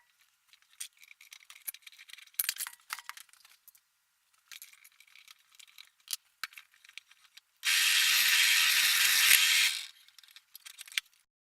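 Small metal parts and tools clinking and rattling as bike parts are handled, with a loud burst of dense noise lasting about two seconds near the end.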